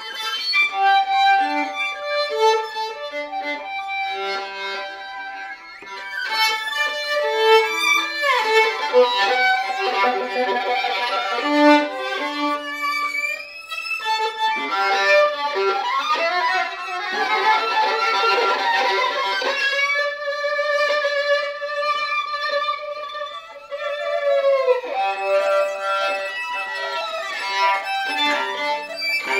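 Violin and viola played together with the bow. Sweeping slides in pitch come about a third of the way in and again just past the middle, then long held notes that bend downward.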